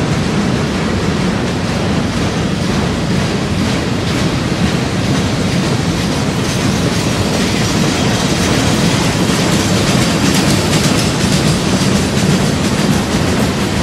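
Freight cars of a mixed manifest train rolling past at close range: steel wheels rumbling steadily and clicking over the rails as gondolas and covered hoppers go by.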